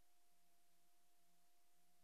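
Near silence: an empty soundtrack with faint hiss and a faint steady tone.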